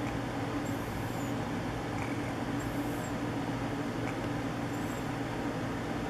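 Sleeping infant snoring softly, a faint snuffling breath about every two seconds, over a steady background hum.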